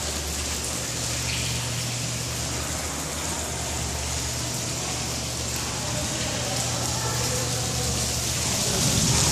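Steady hiss of rainwater leaking through the roof and splashing down, over a low steady hum.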